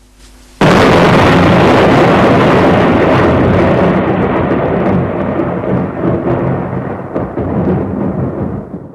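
Thunder: a sudden loud clap about half a second in, then a long rolling rumble that slowly fades, its hiss dying away first, before it cuts off near the end.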